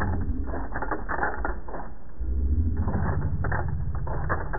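Muffled mechanical rattling and clattering over a steady low rumble, cutting in abruptly, like a machine or gear mechanism grinding away.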